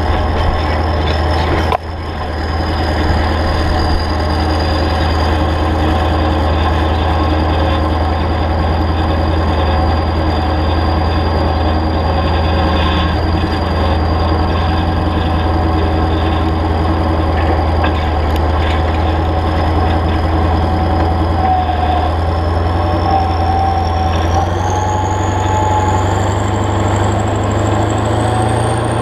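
Kirovets K700-A tractor's V8 diesel engine running steadily under load while it pulls a disc harrow through the field. Near the end a high whine and the engine note both rise as the revs climb.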